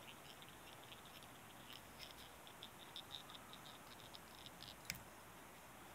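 Faint scratchy ticking of 8/0 black tying thread being wrapped with a bobbin to bind a foam strip onto a dry-fly hook, with one sharp click about five seconds in.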